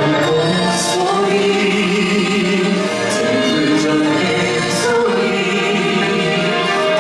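A group of singers performing a song in harmony over instrumental accompaniment, with sustained sung notes and occasional cymbal strokes.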